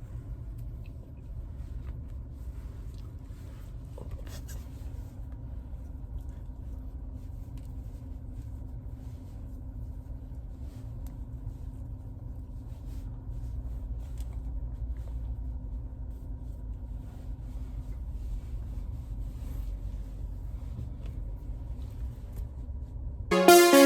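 Steady low rumble of a car heard from inside the cabin, with a few faint clicks. Loud electronic music cuts in just at the end.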